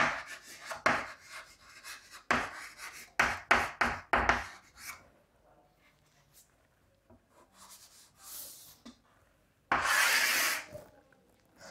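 Handwriting: a quick run of short scratching strokes of a writing tool on a writing surface, a quieter pause, then one longer, louder scrape near the end.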